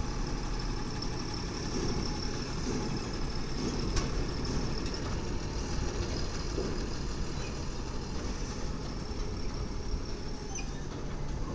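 Heavy diesel truck engine running at low, steady revs as a tractor-trailer car carrier pulls slowly past, with a single short click about four seconds in.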